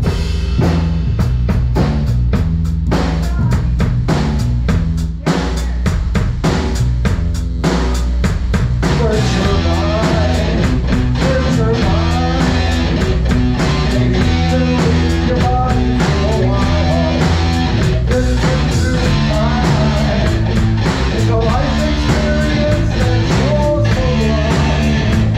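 Live rock band playing loudly: drum kit, electric guitar through Marshall amps, and bass. The first nine seconds or so are driven by hard, evenly spaced drum hits; after that the full band thickens and a wavering melody line runs over it.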